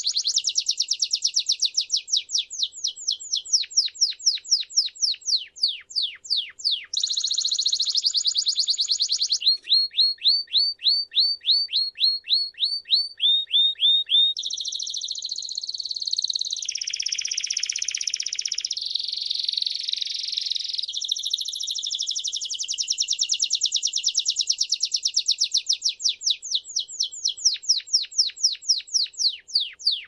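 Timbrado canary singing a long unbroken song. Fast rolling trills alternate with runs of quick, falling notes, and the pace changes every few seconds.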